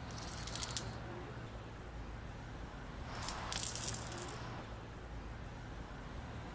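Small metal cigarette lighter being worked in two short bursts of metallic clicking, the second about three seconds after the first, over a low steady hum.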